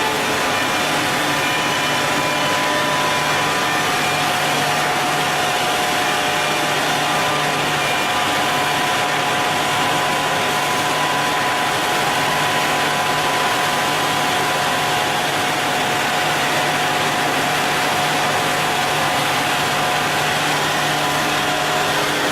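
MJX 243B double-sided tenoning machine running steadily: a constant motor hum with several steady whining tones over an even rush of noise, with no cutting strokes standing out.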